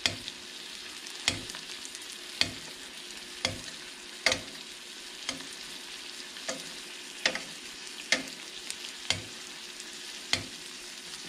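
Ribeye steak and melted butter sizzling steadily in a stainless steel frying pan while a metal spoon bastes it, with sharp clinks of the spoon against the pan about once a second.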